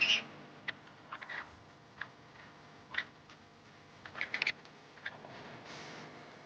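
Scattered light clicks and taps at irregular intervals, with a close cluster about four seconds in and a short soft rush of noise near the end.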